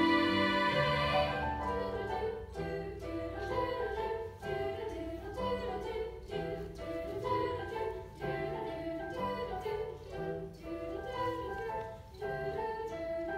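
Children's choir singing. A loud held chord ends about a second in, and the choir then moves on in shorter notes.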